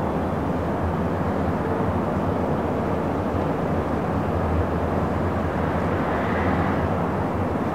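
Busy city traffic ambience: a steady rumble of distant vehicles over a low hum. A faint, brief brake squeal comes about six seconds in.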